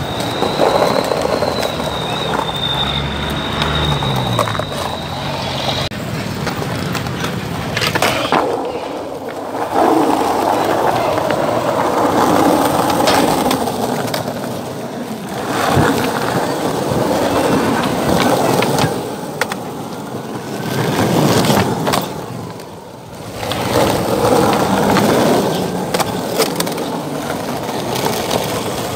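Skateboard wheels rolling over pavement, with sharp clacks of the board popping and landing scattered through. A steady high tone runs through the first six seconds.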